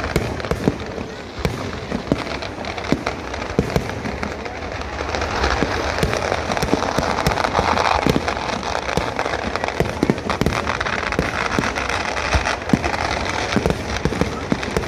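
Vedikkettu fireworks barrage: a dense, continuous run of firework bangs and crackling, with aerial shells bursting and ground charges going off in rapid succession. The crackling thickens for a few seconds about halfway through.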